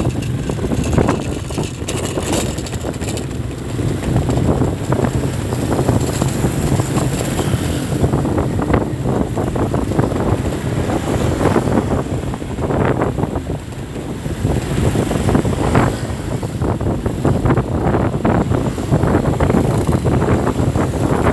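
Road traffic noise with wind buffeting the microphone: a steady low rumble with uneven gusts.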